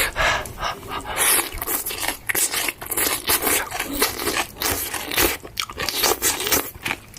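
A person chewing a mouthful of stir-fried cabbage close to the microphone: a quick, irregular run of short crunches and smacks.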